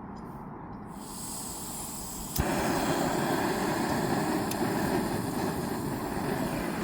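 Portable gas camping stove burner: a sharp click about two and a half seconds in, after which the burner runs louder with a steady rushing hiss.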